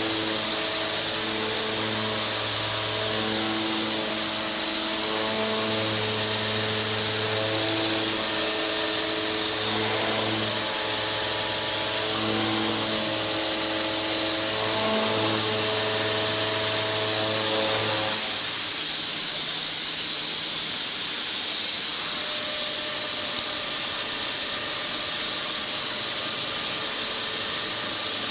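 Milling cutter on a PARPAS THS100X machining centre's TMT50 head cutting a pocket in a metal block: a pitched cutting hum whose tones drop in and out as the cutter engages and leaves the metal, over a steady loud hiss. The hum stops about two-thirds of the way through, leaving the hiss.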